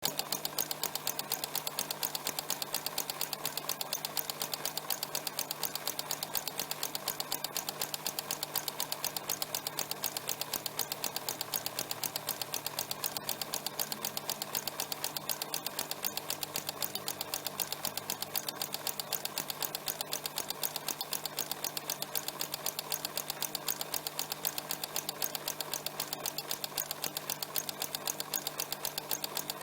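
Sewing machine running steadily, its mechanism clicking in a rapid, even rhythm over a steady low hum. It starts abruptly.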